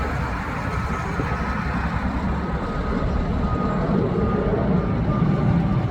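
Steady low rumble of an Airbus A321neo's CFM LEAP-1A turbofan engines as the airliner climbs overhead, with a faint, broken high tone running through it.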